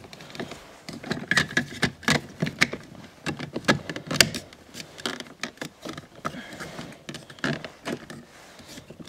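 Irregular plastic clicks and knocks from handling a car's inside door handle and its trim piece, with a few duller thuds among them.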